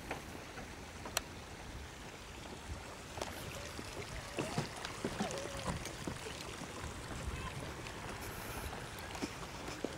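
Hot spring water churning and sloshing steadily, with a few small clicks.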